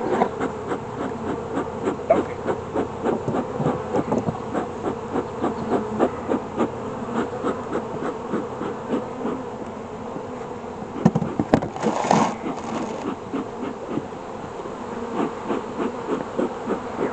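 Honeybees buzzing steadily around an open hive, with many short wooden knocks and clicks from the hive parts being handled, and a brief louder scraping noise about twelve seconds in.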